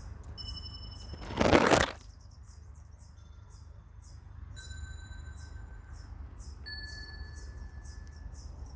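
Electronic plant-music tones, generated from a daisy plant's signals: clean, chime-like single notes held a second or two each and stepping to new pitches, over a quick, even ticking high up. A brief loud rush of noise about a second and a half in.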